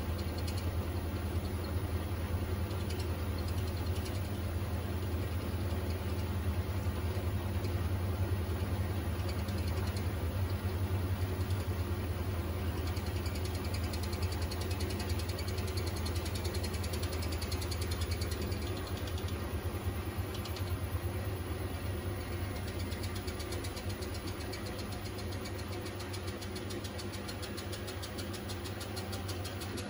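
Beko washer-dryer spinning its drum at speed, a steady low motor hum that gets gradually quieter over the last ten seconds or so as the spin winds down.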